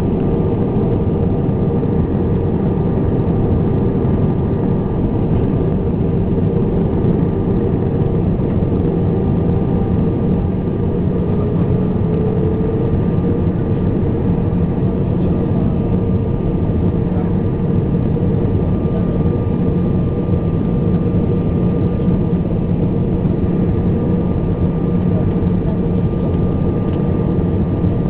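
Airbus A320 jet engines running steadily: a constant loud drone with a few steady tones, one of which rises slightly about ten seconds in.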